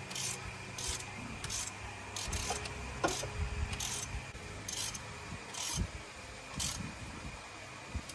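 Repeated rasping strokes of a hand tool being worked back and forth over a part, irregularly spaced about every half second to a second, with a few low thumps in the middle.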